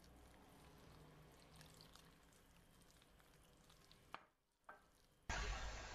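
Near silence: faint room tone with a couple of tiny clicks, then a steady low hiss comes in about five seconds in.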